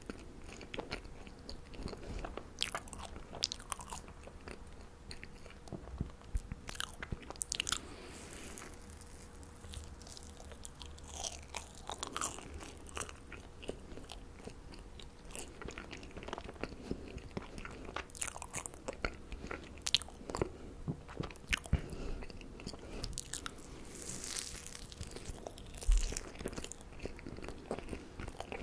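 Close-miked eating of marshmallows: biting and chewing, with many short, irregular mouth clicks and smacks.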